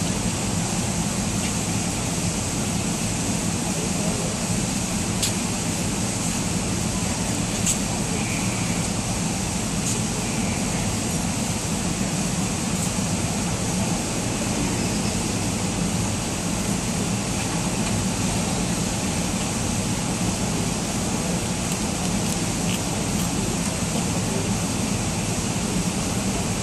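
Steady ventilation roar with a low machinery hum filling a large indoor arena, with a few faint clicks.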